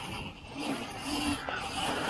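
Electric dirt bike riding: a mechanical rattle from the chain and drivetrain with a steady whine underneath, and no engine note.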